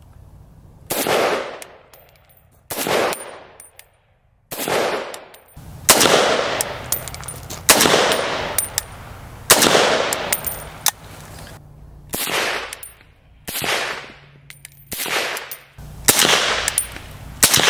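PSA AK-104 rifle in 7.62x39 firing a string of about ten shots, one to two seconds apart, some in quick doubles, each trailing a long echo. By the end the shots are fired through a Resilient Putnik suppressor.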